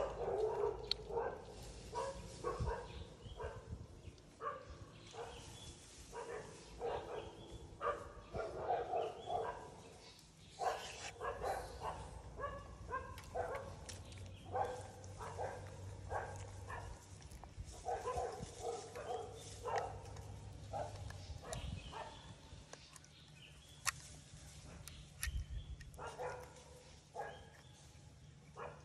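Short animal calls, many of them one after another at irregular intervals, over a faint low steady hum.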